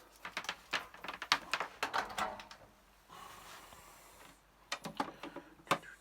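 Hands handling the printer and its cables while plugging it in: a quick run of plastic clicks and knocks, a soft rustling stretch about three seconds in, then a few more clicks near the end.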